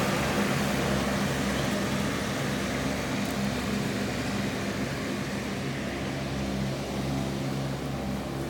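Engine of a Toro 3500 all-wheel-drive golf course mower running steadily, its hum slowly getting a little quieter.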